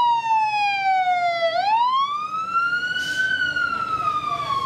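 Emergency vehicle siren wailing: its pitch slides down, climbs for about two seconds from a little past one second in, then starts falling again near the end.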